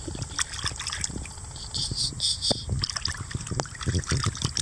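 Water splashing and sloshing in a small plastic tub as a hand scoops and splashes it around a springer spaniel puppy sitting in the water, in short irregular splashes. A brief high chirping comes about two seconds in.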